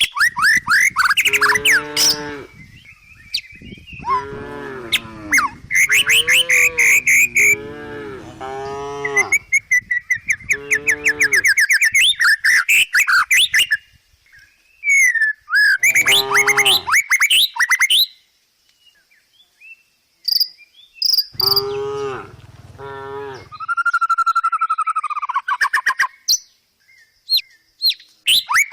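Village cows mooing again and again, a string of long calls that bend in pitch, with birds chirping between them.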